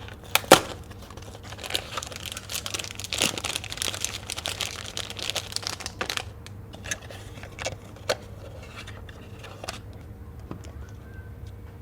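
Plastic snack wrapper crinkling as it is handled, with a sharp snap about half a second in, dense rustling for a few seconds, then scattered crackles.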